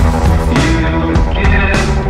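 Rock song playing: guitar, bass and drums with a steady beat.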